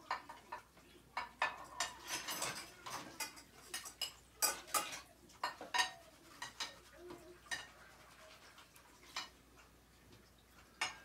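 Dishes and cutlery clinking and clattering in a sink as they are washed by hand. The clinks come irregularly, busiest in the first half, then thin out to a few scattered knocks.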